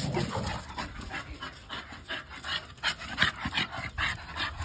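Dog panting hard, quick breathy puffs at about two to three a second, from the exertion of wrestling with another dog.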